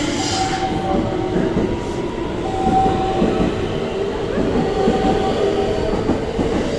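Electric rapid train pulling out of the station: steady motor whine over wheels clattering on the rails.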